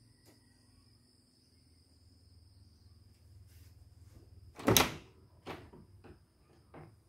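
Wooden door being opened, with one loud clunk about two-thirds of the way through and a couple of softer knocks after it. Crickets trill steadily in the background.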